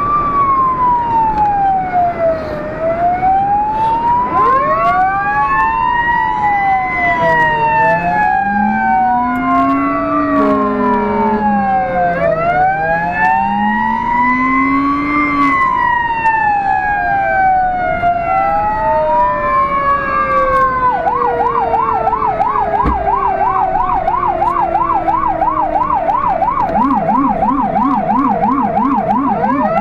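Fire engine's siren wailing, two tones slowly rising and falling out of step. A low-pitched rumbler wail sounds beneath them for several seconds, with a short horn blast about eleven seconds in. About twenty seconds in, the siren switches to a fast yelp, and the low rumbler yelps too near the end.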